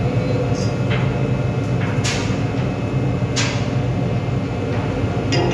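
Steady low drone of a ship's machinery, with a few brief swishes over it.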